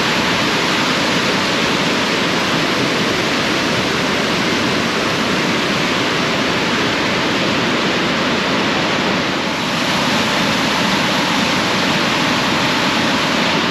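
Loud, steady rush of a large waterfall close by: Upper Mesa Falls on the Henry's Fork of the Snake River.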